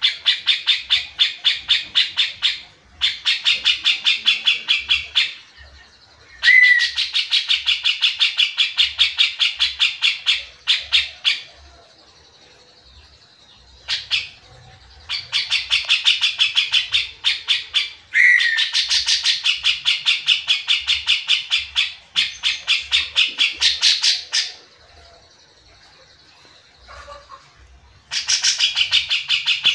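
Cucak jenggot (brown-cheeked bulbul) singing in rapid chattering runs of many quick notes, about ten a second, each run lasting a few seconds with short pauses between. There are about six runs, the longest near the middle, plus a couple of single brief notes in the pauses.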